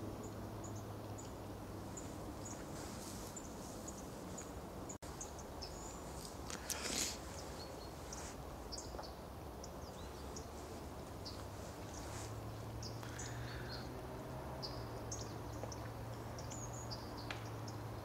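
Many short, high calls of small songbirds scattered throughout, over a low steady hum. About seven seconds in there is one louder, harsher sound lasting about half a second.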